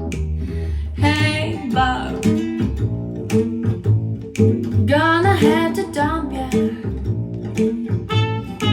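A recorded pop song playing through a WiiM VibeLink amplifier and its speakers. A deep bass line and plucked guitar carry the song, and a sung vocal line comes in about a second in.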